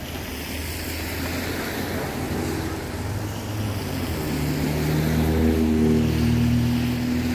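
A motor vehicle's engine running with a steady low hum, growing louder and more tonal from about four seconds in.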